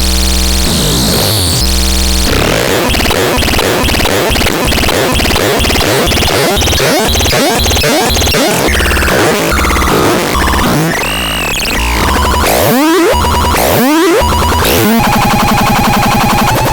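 Loud, chaotic synthesizer noise: harsh, rapidly shifting electronic tones and buzzes, with swooping pitch glides about two-thirds of the way in and a steadier buzzing tone near the end.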